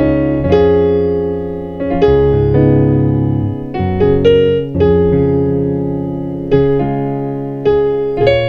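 Piano playing a slow gospel chord movement with passing chords: a series of chords, each struck and left ringing, about nine or ten chord changes in all.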